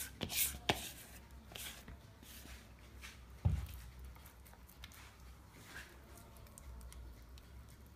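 Spatula scraping and squishing thick chocolate brownie batter out of a bowl into a baking pan, in short scrapes. A single dull knock comes about three and a half seconds in.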